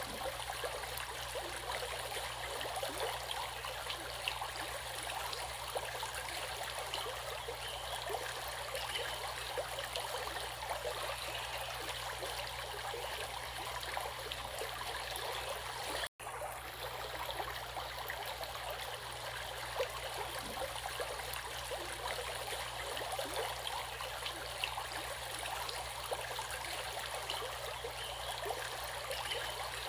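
Running water of a stream flowing steadily, an even rushing splash, broken by a split-second dropout about sixteen seconds in.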